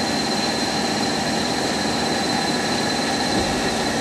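Milling machine running steadily through a precision boring cut, a steady noise with a constant high-pitched whine over it.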